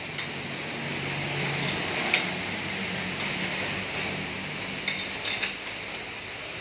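Corded electric drill running steadily as it bores into a steel truck chassis frame, with a few sharp metal clinks, the loudest about two seconds in.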